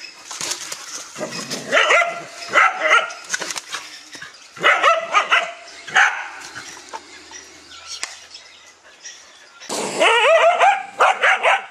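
Dogs barking in short, spaced bursts, then a quick run of barks about ten seconds in.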